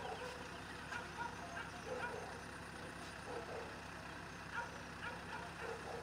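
Kubota DC-70 combine harvester's diesel engine running at a steady pace as it harvests rice.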